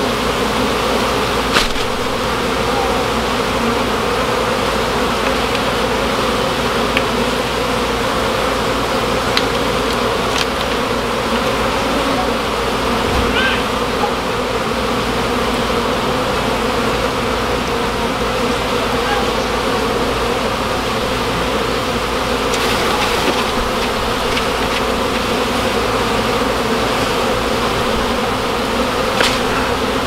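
Many honey bees buzzing steadily around a colony opened up in a wall void, with a few short sharp clicks, about a second in, twice around ten seconds in, and near the end.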